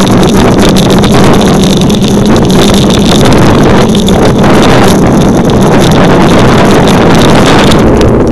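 Loud, steady wind buffeting on the microphone of a camera riding on a road bicycle at speed.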